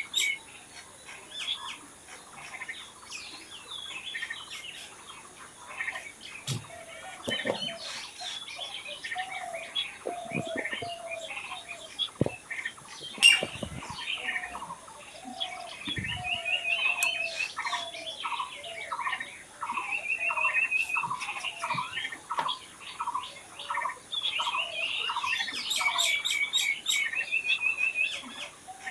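Several songbirds chirping and singing together, overlapping trills and short repeated notes, with a long run of evenly spaced notes in the second half. A sharp click stands out about halfway through.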